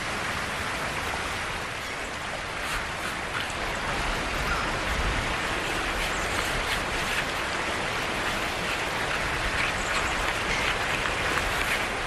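Steady rush of river water pouring over rocky falls, with a few faint clicks.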